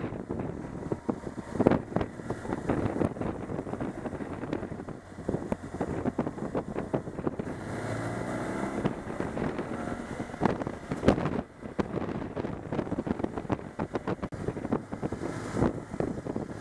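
Wind buffeting the microphone of a motorcycle-mounted camera while riding, in uneven gusts, over the motorcycle's engine, whose pitch shifts up and down about eight seconds in.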